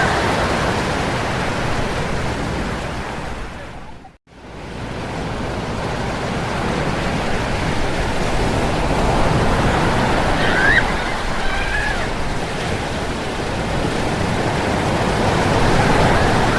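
Ocean surf on a beach: a steady rush of breaking waves that swells and eases, cutting out abruptly for a moment about four seconds in before resuming.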